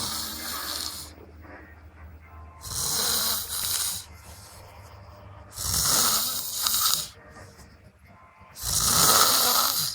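A sleeping person snoring heavily, one long noisy snore about every three seconds, four in all.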